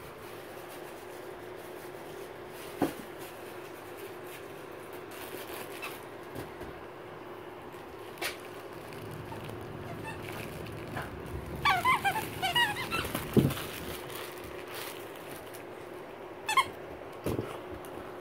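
Dog playing with and mouthing a plush toy, with a quick run of high squeaks about twelve seconds in and another brief squeak near the end, among a few soft knocks.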